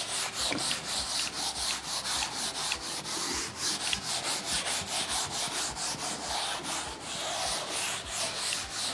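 Duster wiping chalk off a chalkboard: a dry rubbing hiss in quick back-and-forth strokes, several a second.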